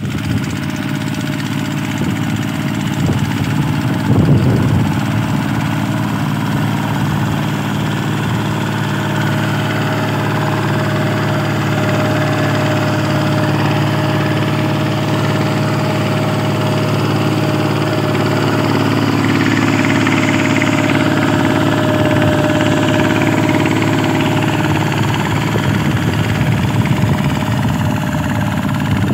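Single-cylinder diesel engine of a two-wheel walking tractor running steadily under load as it pulls a disc plough through wet soil. There is a brief louder surge about four seconds in.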